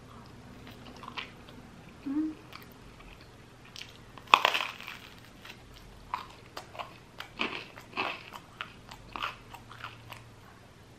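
Biting into crusty baguette: one loud crunching bite about four seconds in, then a run of crunchy chewing.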